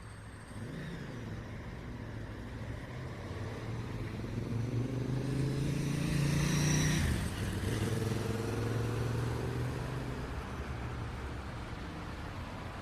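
A motor vehicle approaches and passes close by, its engine note growing louder and then dropping in pitch as it goes past about seven seconds in, over a steady low traffic hum.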